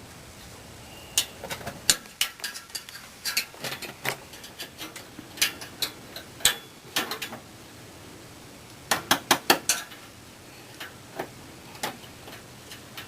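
Steel hemostat clicking and scraping against a metal electrical outlet box: irregular sharp metallic clicks, with a quick run of about six a little after the middle.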